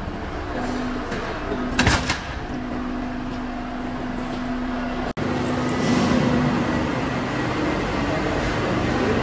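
Workshop machinery running: a belt-driven flywheel power press with a steady hum and a sharp clank about two seconds in, then, after a break just past halfway, steady general machine noise of a press shop.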